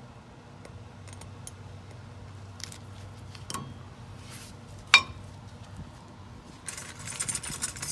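Light clicks and knocks of handling, with one sharp metallic clink about five seconds in and a rustling scrape near the end.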